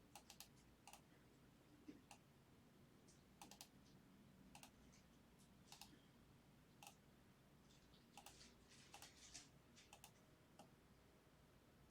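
Faint, irregular clicking at a computer, single clicks and short clusters, over near silence.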